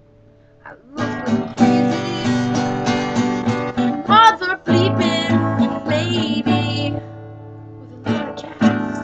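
Acoustic guitar strummed in chords, starting about a second in, dropping away near seven seconds and picking up again for a few strums near the end.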